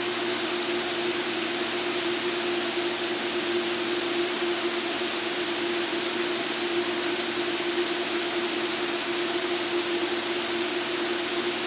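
Steady cockpit drone of an Extra 300L aerobatic plane's piston engine and propeller in level flight: a constant hiss with a steady hum and faint high whines, holding the same pitch and level throughout.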